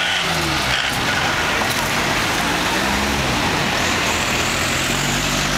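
Motor vehicle engines running close by as a box-bodied Isuzu pickup truck drives past, with more traffic coming up behind it.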